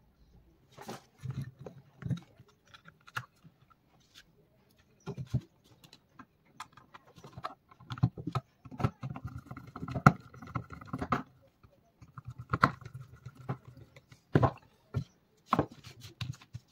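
Irregular clicks, taps and scrapes of hand work on a small LED street light fitting, in clusters with short pauses and a few louder knocks.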